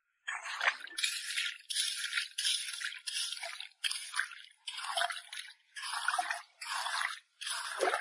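A hand hoe digging into wet sand under shallow water: about ten quick scraping, splashing strokes in a steady rhythm, a little more than one a second, as the sand is raked over for clams.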